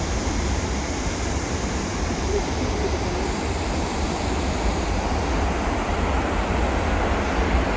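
Steady rushing of a large waterfall, an even wash of water noise with no let-up, with wind rumbling on the microphone underneath.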